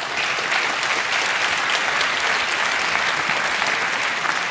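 Arena crowd applauding steadily, just after the bell ending a boxing round.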